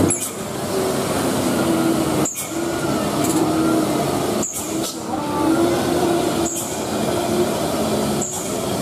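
Diesel truck engines running with a steady low drone, over the hiss of traffic on a wet road. The sound briefly drops out about every two seconds.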